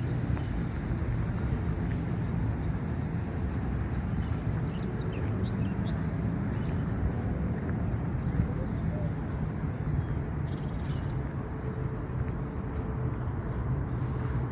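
Steady low outdoor rumble with a few faint, short bird chirps above it, about four to six seconds in and again near eleven seconds.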